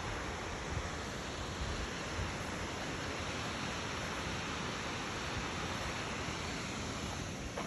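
Steady rushing of a waterfall, an even noise with no breaks, which drops away suddenly near the end.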